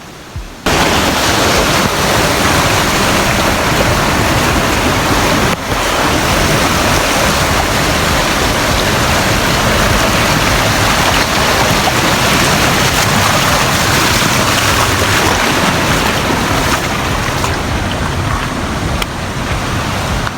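Loud, steady rush of flowing water from a mountain stream or waterfall cascade, starting suddenly about a second in.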